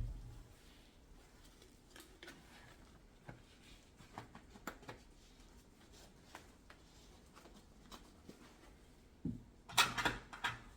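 Faint scattered clicks and taps of paint bottles and cups being handled on a work table. A few louder knocks come near the end.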